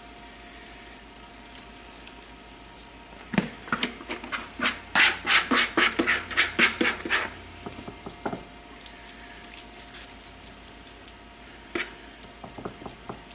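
Hands pressing and patting raw ground-meat meatloaf mix into a loaf pan. A run of wet slaps comes in the middle, about two to three a second, with a few lighter pats near the end.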